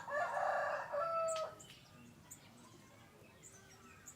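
A rooster crows once, a call of about a second and a half at the start. Faint small-bird chirps follow.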